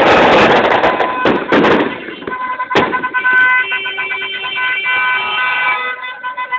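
Car horns in a motorcade, several held at once on steady tones of different pitches, some dropping out near the end. Before them come a loud noisy rush with a few sharp bangs and a single sharp crack about three seconds in.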